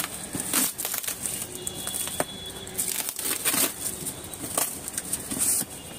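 Packing tape being torn and pulled off a cardboard carton, with the cardboard rustling: several short, irregular ripping and crinkling noises.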